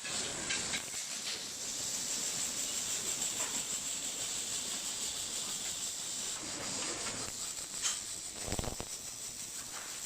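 Cold-metal-transfer MIG welding arc on aluminium pipe, hissing and crackling steadily, with a brief low thump about eight and a half seconds in.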